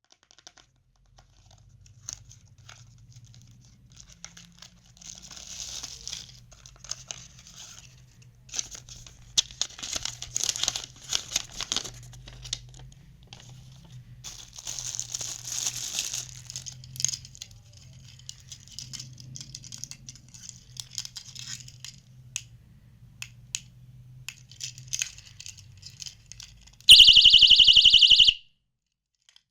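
Plastic packaging crinkling and tearing as a personal safety alarm keychain is unwrapped and handled. Near the end the 130 dB alarm goes off in a loud, piercing high-pitched shriek for about a second and a half, then cuts off suddenly.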